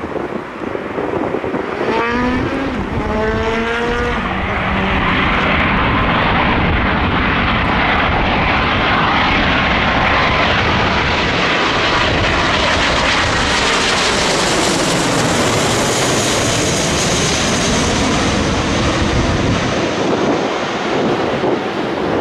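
Boeing 777 jet on final approach with gear down, passing low overhead: a loud rushing jet-engine noise that builds as it approaches and stays strong as it passes, with a faint whine that slides down in pitch overhead. A few short rising tones sound about two to four seconds in.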